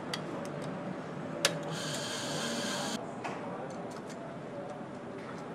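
Car factory floor machinery: a steady background with scattered light ticks, a sharp click about a second and a half in, then a burst of hiss lasting just over a second.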